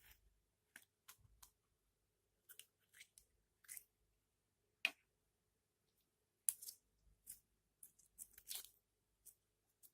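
Slime being squished and stretched by hand, making scattered small wet clicks and pops, with one sharp pop about halfway through and a quick run of them in the second half.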